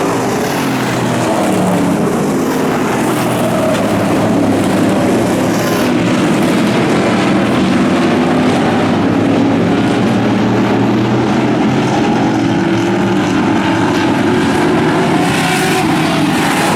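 A field of dirt-track street stock race cars running at racing speed, several engines overlapping in one continuous loud drone.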